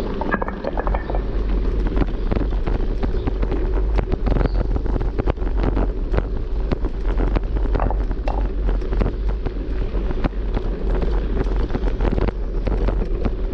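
Bicycle rolling over cobblestones, a dense steady rattle, under heavy wind noise on the microphone.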